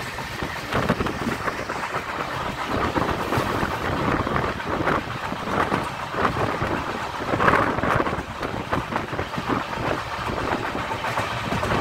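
Running noise of a moving Indian Railways passenger coach heard at its open window: steel wheels rumbling and clattering irregularly over the track, with a louder burst of clatter a little past halfway.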